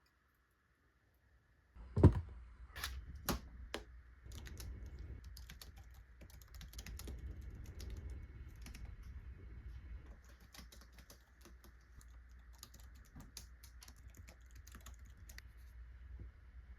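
Near silence, then a loud thump about two seconds in followed by a few clicks, then steady typing on a keyboard: a dense run of small key clicks.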